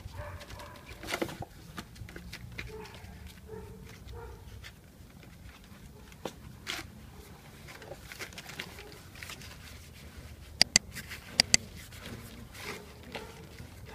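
Rottweiler puppies growling and scuffling over cardboard as they tug at a toy. About ten seconds in come two quick pairs of short, sharp high squeaks, the loudest sounds.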